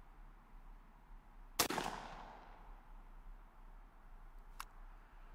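A single shot from a Mossberg 500 .410 pump shotgun firing a TSS turkey load, about one and a half seconds in, its report echoing and dying away over about a second.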